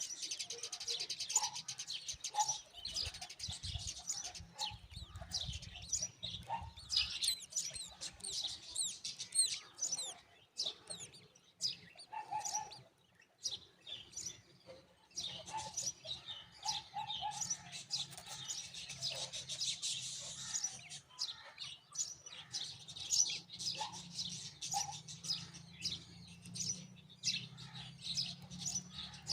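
Baby myna birds chirping: a dense, continuous chatter of high-pitched calls, with a few short lower notes in between.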